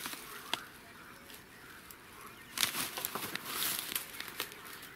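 A hand cast of a weighted fishing line: a few light clicks, then about two and a half seconds in a rushing swish of about a second and a half as the line is thrown out.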